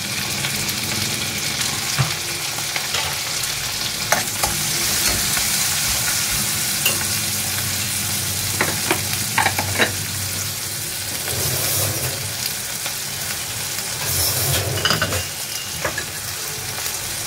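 Onion, tomato, curry leaves and green chillies sizzling steadily in hot oil in a non-stick kadhai, with scattered sharp clicks.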